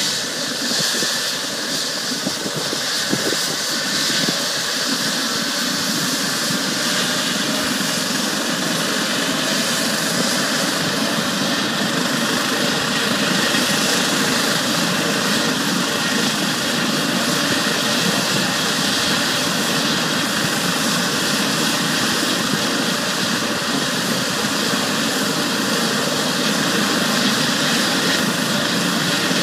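Helicopter on the pad with its turbine engine and rotor running: a steady loud whine and rush that grows a little louder over the first few seconds, then holds even.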